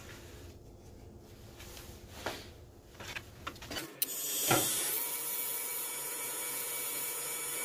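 A wood lathe falls quiet, leaving a few knocks and clicks of handling. About four seconds in, a sharp click and the lathe runs again, with the steady hiss of sandpaper held against the spinning cherry-wood goblet.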